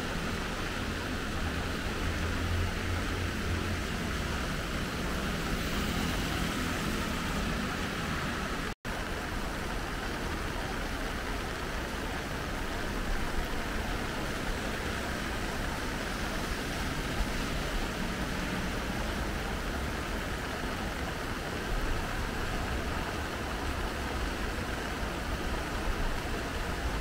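Steady rushing of floodwater in a rain-swollen urban stream, with a deeper rumble in the first few seconds. The sound cuts out for an instant about nine seconds in.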